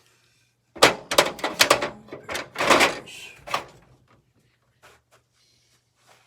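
A quick run of sharp knocks and clatters of hard saw parts being handled and worked loose while a miter saw is taken apart for scrap, bunched in the first few seconds, then only a few faint ticks.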